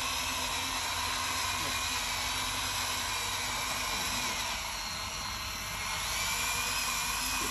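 Electric track motors and gearboxes of a Huina radio-controlled excavator whining as it drives and turns on its tracks, the pitch sliding up and down with the throttle.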